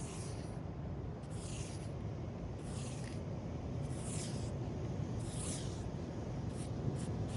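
Steady low rumble of surf with a scratchy swish of sand repeating about every second and a quarter.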